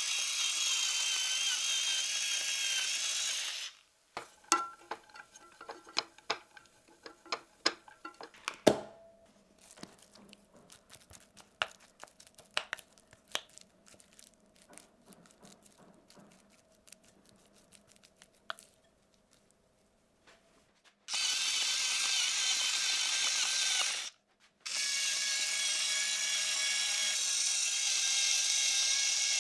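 A small electric kitchen appliance motor runs with a steady whine in three short bursts: one at the start, one about 21 seconds in and one just after it. Between the first and second run come irregular clicks and knocks, most of them in the first few seconds after the motor stops.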